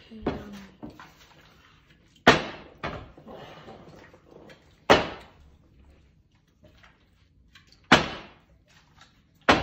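A plastic water bottle being flipped and landing on a table: four sharp thuds, each two to three seconds apart.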